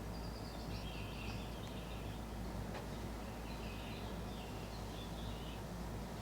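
Steady low hum of room noise, with faint high bird chirps in two short spells and a soft click near the middle.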